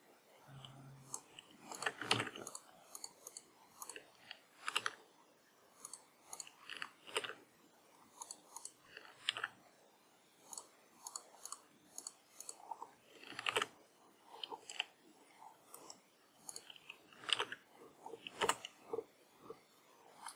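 Faint, irregular clicking of a computer mouse and keyboard, with a few louder clicks scattered through.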